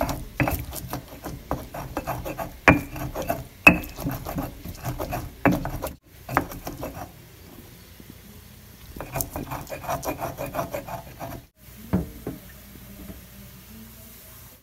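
Stone pestle crushing and grinding roasted green chiles in a volcanic-stone molcajete: irregular knocks and scraping grinds of stone on stone, easing off briefly about halfway through.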